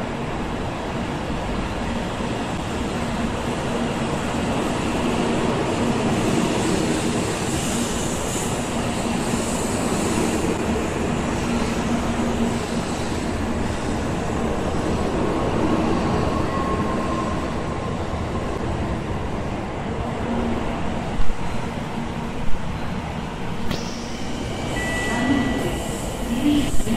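Shinkansen bullet train running slowly past a station platform: a steady rush of train noise with a low hum. Two sharp clicks come about two-thirds of the way in, and a brief high tone near the end.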